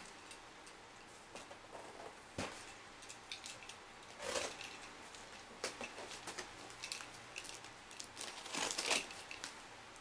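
Cardboard shipping box being cut open with a box cutter and handled: irregular scrapes, crinkles and knocks, the loudest about four seconds in and again near nine seconds.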